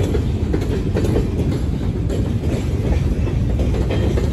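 Freight train of open-top freight cars rolling steadily past: a low rumble of steel wheels on the rails with clickety-clack over the joints.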